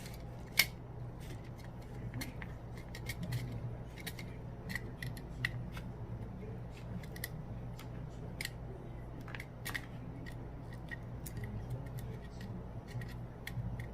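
Small hand tools clicking and scraping against the plastic and metal parts of a Sonim XP8 rugged phone being taken apart: scattered sharp little clicks over a steady low hum, the loudest about half a second in.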